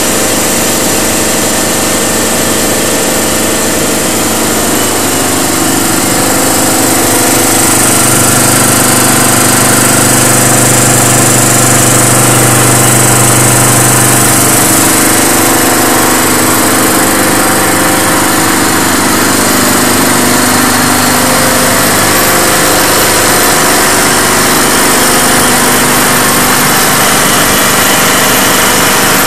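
Sauer WP4205 B3-6 two-stage, water-cooled reciprocating gas booster running steadily. It gives a loud, constant machine noise with a steady hum, and a low hum swells for several seconds in the middle.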